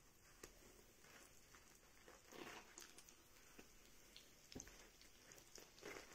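Faint sizzling of oil in an electric baking pan, with a handful of soft taps and scrapes as a spatula and fingers turn over the breadcrumb-coated buns being half-fried.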